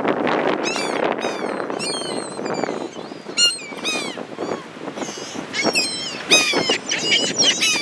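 A flock of seagulls calling: many short, overlapping cries that fall in pitch, over a steady rushing noise.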